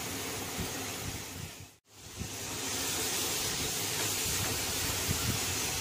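Minced mutton sizzling in hot oil in a frying pan, a steady hiss. It cuts out for an instant about two seconds in, then comes back a little louder.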